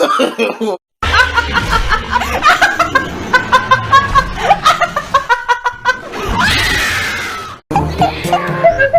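People laughing hard, in rapid repeated ha-ha pulses, with a longer falling sound a little after the middle.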